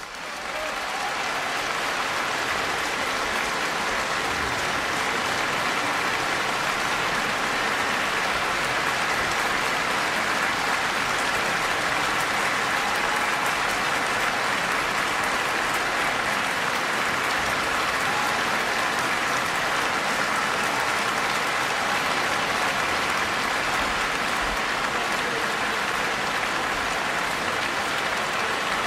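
Large concert-hall audience applauding, breaking out at once and filling out within about a second, then a steady, dense clapping that does not let up.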